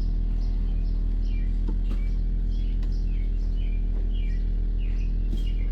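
A small bird chirping repeatedly, with short, falling, high chirps about every half second, over a steady low hum.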